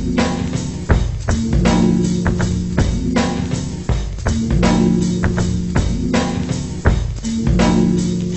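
Background music with a drum kit and guitar, a steady beat.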